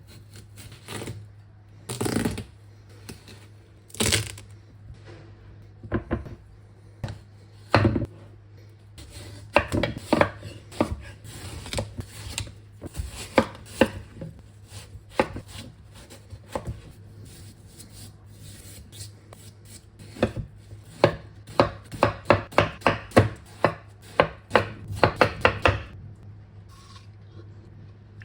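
A knife cutting through a juicy watermelon: a few single cuts about two seconds apart, then quicker runs of chops, fastest a few seconds before the end. A steady low hum runs underneath.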